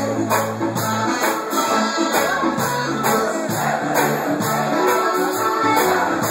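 Reggae band playing live: a bass line under drums keeping a steady, even beat.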